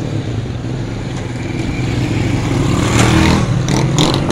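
A motor vehicle's engine running close by, a steady low hum that grows louder about three seconds in, with a few short knocks near the end.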